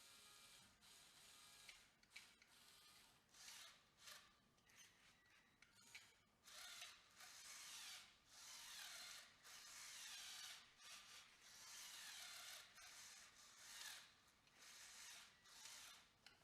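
Faint small electric motors and plastic gears of a motorised Lego Technic model running in repeated bursts of a second or two, starting and stopping, with the pitch sliding as the motor speed changes.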